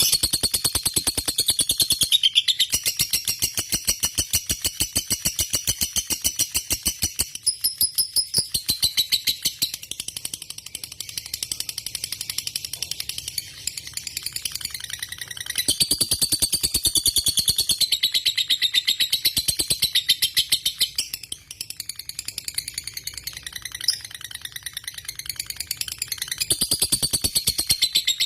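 Lovebird singing a long, unbroken rapid chattering trill, many sharp notes a second over shrill high tones, faltering only briefly a few times. This is the long-duration 'ngekek' song valued in Indonesian lovebird contests.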